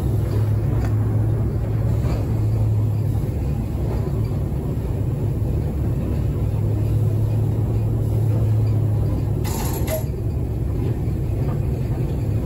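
Diesel shunting locomotive's engine running steadily with a low drone as it moves two loaded wagons along the track. A brief hiss about nine and a half seconds in.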